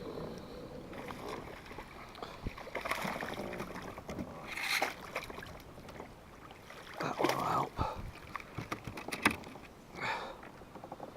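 Water splashing and sloshing beside a kayak, with several short splashes and knocks against the hull as a hooked bass is played and brought aboard.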